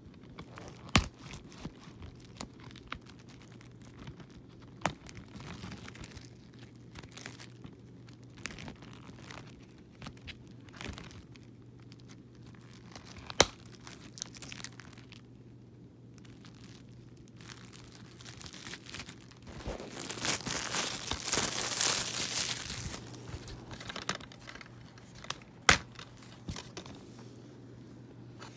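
Plastic wrap on a DVD case being torn and crinkled off, with scattered sharp clicks from handling the plastic case. The crinkling is loudest for a few seconds past the middle, and a sharp snap near the end comes as the case is opened.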